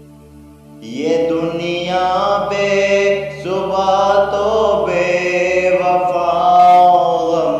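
A male voice sings a devotional naat with long, ornamented held notes over a steady drone. The voice comes in about a second in, after a brief pause where only the drone sounds.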